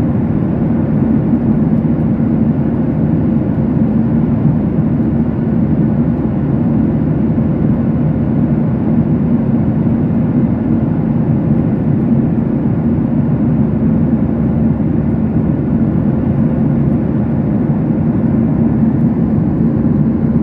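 Airliner cabin noise in flight: the steady, low drone of the jet engines and airflow, with a faint steady hum above it.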